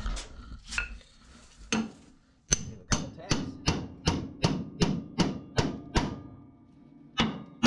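Hammer blows on a pickle-fork ball-joint separator driven in under a tie-rod end on the steering bell crank, forcing the tapered joint apart. A few single blows are followed by a quick, even run of about ten strikes, then two more near the end.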